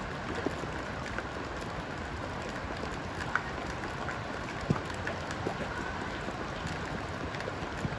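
Steady rain falling, with a few scattered drips and light taps.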